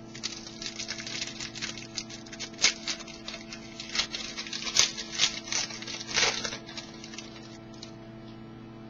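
Trading cards being flipped and slid against one another in the hands, a run of light flicks and scrapes that stops about two-thirds of the way through. A steady electrical hum sits underneath.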